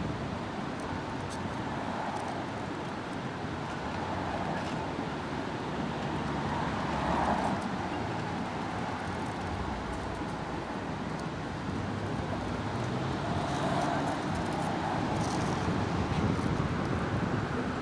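Steady outdoor background noise of road traffic, with a few soft swells.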